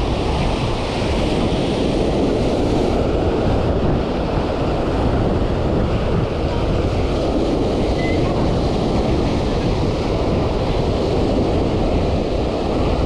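Surf breaking steadily on a sandy beach, mixed with wind buffeting the microphone.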